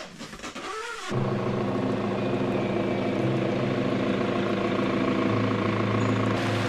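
A vehicle's engine starts running steadily about a second in, holding an even, unchanging drone.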